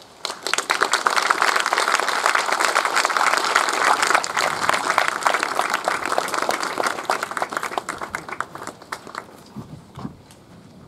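Audience applauding, many hands clapping together; it starts just after the opening, holds steady, then thins out and dies away in the last couple of seconds.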